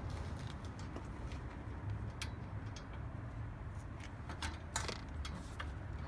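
Scattered light metallic clicks and rattles as a bicycle's rear wheel and chain are handled and seated in the frame's dropouts, over a steady low background rumble.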